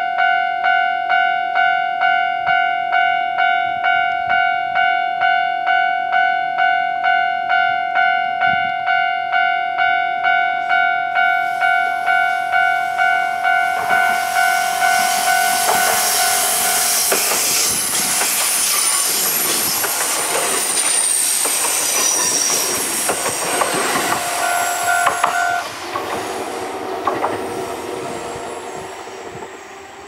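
Japanese level-crossing bell ringing steadily at about two strikes a second, as a Kintetsu 2610-series electric train approaches and passes close by. The wheels rumble and clatter over the track with some high squeal, the bell stops partway through the pass, and the train's running noise fades as it pulls away.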